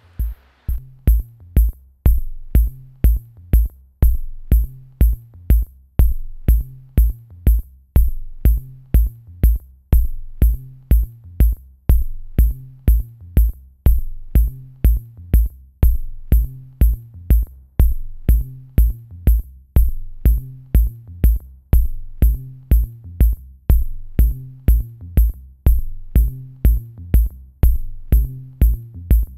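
Electronic background music with a steady drum-machine beat, about two beats a second, over a deep bass line.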